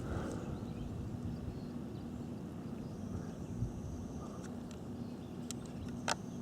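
Outdoor background noise with a steady low hum, a faint high thin tone in the second half, and a few sharp clicks, the loudest near the end.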